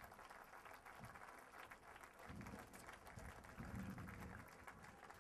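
Faint, scattered applause from a crowd.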